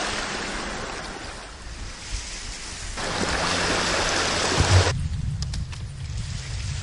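Outdoor shoreline ambience: a steady hiss of wind and water. About five seconds in it cuts off abruptly to a low wind rumble on the microphone, just after a short low thump.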